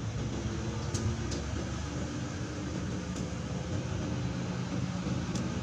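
An engine running out of sight, a low steady hum whose pitch wavers slightly, with a few faint high ticks.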